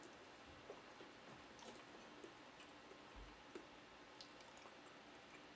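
Near silence with a few faint, scattered small clicks and one soft low thump a little past three seconds in: handling noise from picking up a plastic water jug with a flip-top straw lid.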